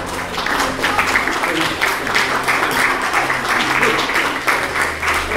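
Audience applauding: many quick, irregular hand claps running on without a break.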